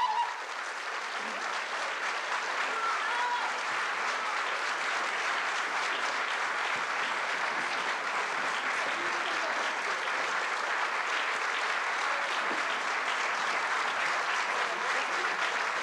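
The last held chord of the music cuts off at the start, and a theatre audience applauds steadily.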